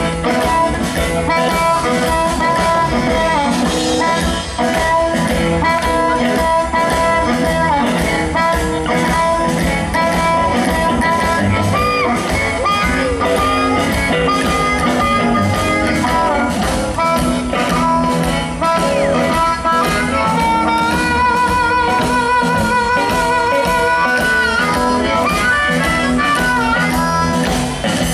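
Live blues band: a harmonica played through a microphone leads over electric guitar, upright bass and drums keeping a steady beat. About two-thirds of the way through, the harmonica holds a long note with a fast wavering vibrato.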